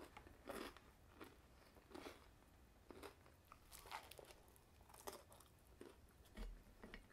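Faint chewing of a toasted chicken panini, with a bite into it about four seconds in: soft crunches of the toasted bread coming every second or so.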